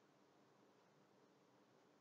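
Near silence: faint steady hiss and hum from the recording.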